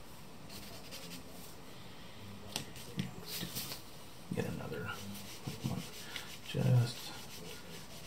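Charcoal drawing tools rubbing and scratching on drawing paper in a run of short strokes.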